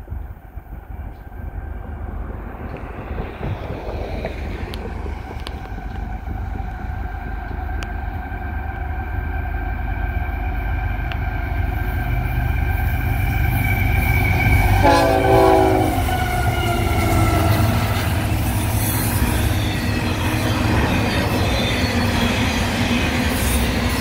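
CSX freight locomotive's air horn sounding as the train approaches, growing louder and dropping in pitch as the locomotives pass about 15 seconds in. After that, the steady rumble and clatter of the intermodal cars' wheels on the rails, with brief wheel squeals.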